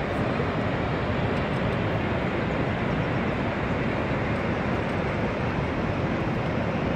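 Steady rushing roar of the American Falls at Niagara: an even, unbroken water noise with no distinct events.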